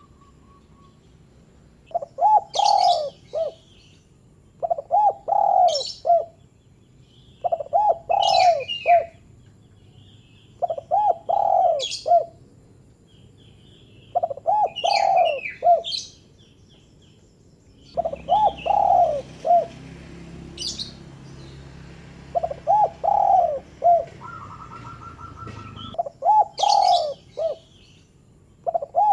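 Spotted dove (terkukur) giving its short cooing call over and over, one phrase about every three to four seconds, with brief high chirps among the coos. A faint low hum sits under the calls for several seconds in the second half.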